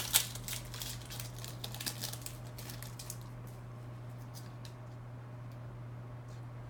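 A 1999 Bowman Chrome football pack being torn open and its cards handled: quick crinkles and light clicks, busiest in the first few seconds and then sparser, over a steady low hum.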